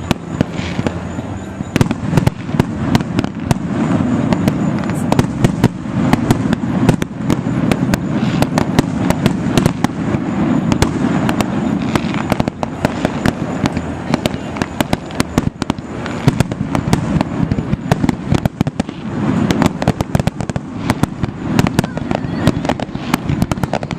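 A dense barrage of aerial fireworks bursting, many sharp bangs a second over a continuous low rumble.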